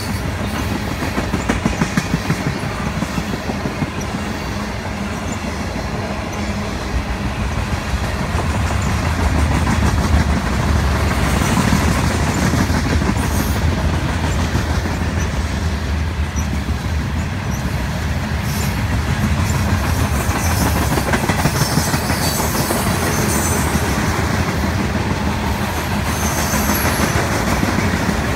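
Freight train's tank cars and boxcars rolling past close by: a steady rumble of steel wheels on the rails, with wheels clicking rhythmically over rail joints.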